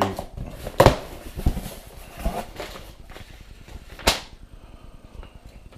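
Cardboard shipping box flaps being pulled open by hand and a paper packing slip lifted out and handled: rustling, with a sharp snap about a second in and a louder one about four seconds in.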